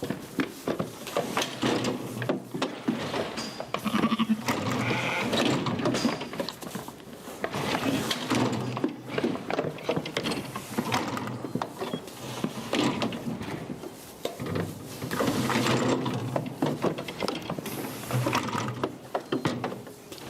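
Sheep bleating again and again, with knocks and rattles from the metal handling crate and its gates.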